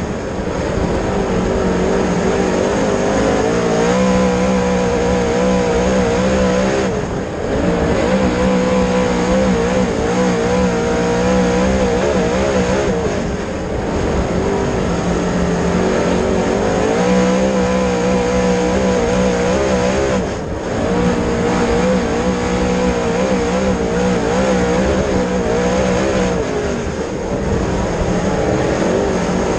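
Dirt late model race car's V8 engine running hard on track, its note steady and loud but dipping briefly four times, about every six to seven seconds, as the driver eases off.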